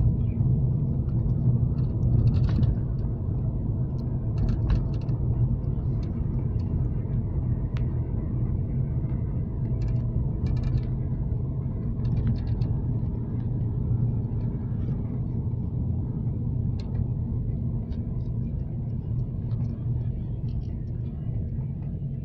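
Steady low rumble of a running vehicle, with a constant low engine hum and a few faint clicks.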